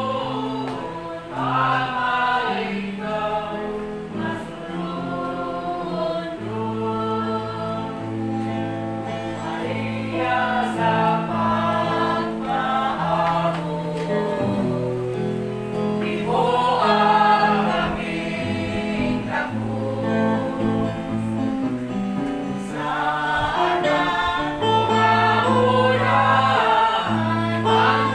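A choir singing a Christian worship song over held bass notes that change every second or two.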